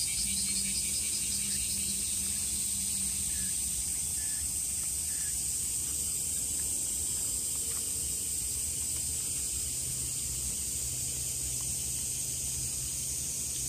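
Steady high-pitched hiss of an insect chorus, with a low steady rumble underneath.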